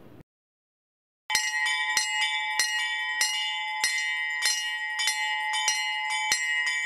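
A temple bell rung over and over, about one and a half strikes a second, each strike ringing on into the next; it starts after about a second of silence.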